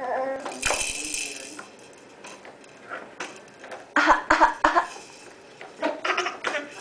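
A baby giving short, put-on coughs, not a sick cough: one longer cough about a second in, then quick clusters of little coughs around four seconds in and again near the end.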